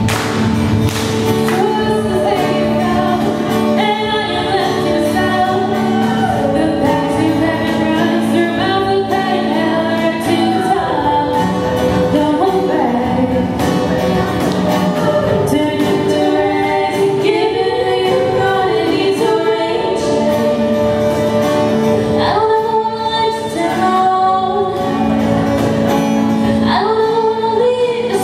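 Young women's a cappella group singing in close harmony, with long held chords under a moving melody line.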